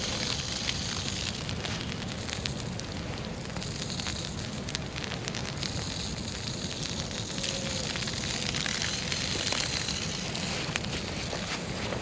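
Dry grass burning slowly, crackling with many small scattered pops over a steady low rumble.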